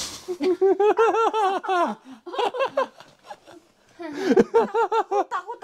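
People laughing in rapid, high-pitched 'ha-ha-ha' bursts: one bout of about two seconds, then a second starting about four seconds in.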